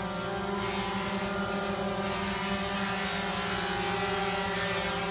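Quadcopter drone flying overhead, its propellers whirring in a steady hum of several tones with a slight wobble in pitch.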